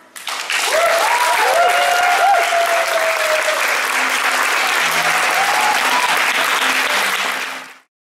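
Audience applauding and cheering, with rising-and-falling whoops in the first half, as a dance ends; faint music carries on underneath. The applause starts sharply and cuts off suddenly near the end.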